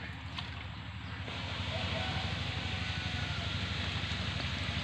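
Muddy pool water sloshing and splashing as a hand net is swept through it by someone wading, the water noise steadying into a constant wash about a second in, over a steady low rumble.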